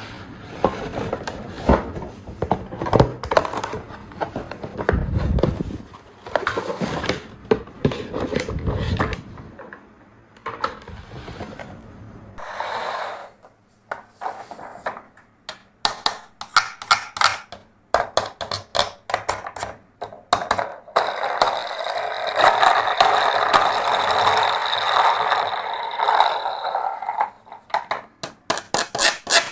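Plastic toys being handled: a run of sharp clicks and knocks, with a low rumbling scrape over the first several seconds and a steadier rustling scrape for several seconds in the second half.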